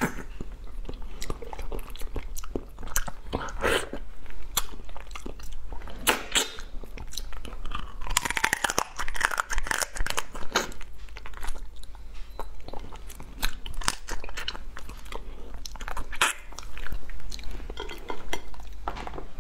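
Close-miked crunching and chewing as a person bites through a crab's shell and legs, with many sharp cracks of shell between the teeth.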